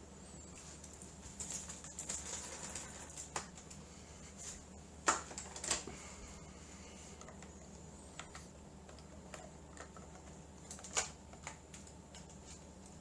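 Handling noise: scattered sharp clicks and taps with a little rustling, the loudest taps about five seconds in and again near eleven seconds, over a faint steady hum.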